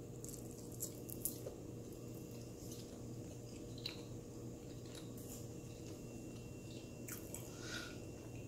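Faint chewing and mouth sounds of a person eating a bite of food, with a few small, sharp clicks over a steady low hum.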